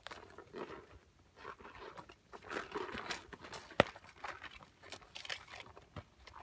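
Saint Laurent leather wallet-on-chain being handled and opened: leather rustling and crinkling, with a sharp click about four seconds in and a softer one near the end.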